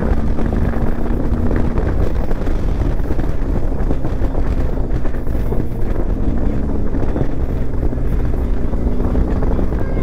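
Motorcycle engine running steadily while riding at road speed, with wind rushing over the helmet-mounted microphone.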